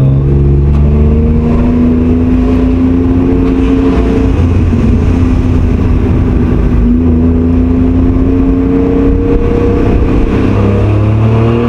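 Kei car engine breathing through an aftermarket rear-piece muffler, heard from inside the cabin while driving. The engine note rises in pitch under acceleration, dips about four seconds in, climbs again, and drops near the end.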